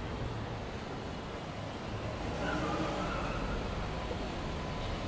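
City street ambience: a steady low rumble of car traffic, with a faint voice about halfway through.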